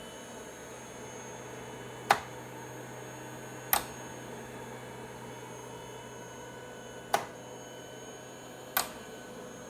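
VentaMAX mechanical ventilator running with a steady hum, broken by sharp clicks in pairs about a second and a half apart, the pair coming round again about every five seconds.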